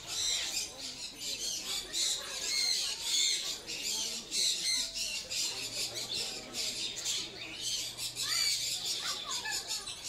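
Many caged birds calling together in a dense, continuous chorus of chirps and squawks, with a few rising calls near the end.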